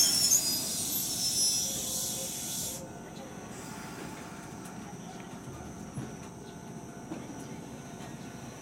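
Toyama Chihō Railway 17480-series electric train, a former Tokyu car, finishing its stop at the platform: high brake squeal and hiss that cut off abruptly about three seconds in. After that the stopped train's equipment runs with a steady low hum and a couple of faint clicks.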